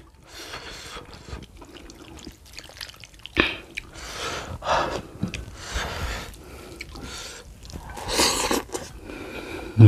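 Soup broth being poured from a glass bowl onto rice, splashing and dripping in uneven spurts.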